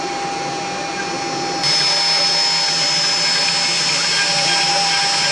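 Home-made gantry CNC router cutting wood: its 2.2 kW high-speed spindle runs with a steady whine while the stepper-driven gantry moves the small bit over the carving. About a second and a half in the sound gets louder and a high steady whine comes to the fore.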